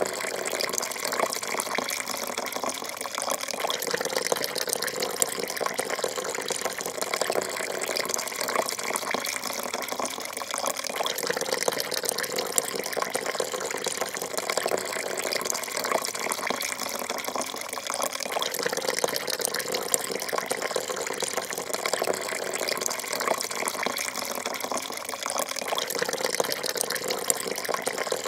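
A thin stream of coffee pouring into a porcelain cup: a steady splashing trickle that swells and eases about every seven seconds.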